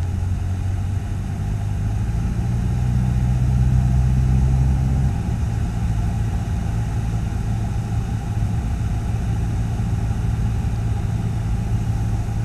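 Cessna 152's four-cylinder Lycoming O-235 engine and propeller running steadily at approach power on final descent, heard muffled inside a pilot's headset ear cup. The tone shifts slightly about five seconds in.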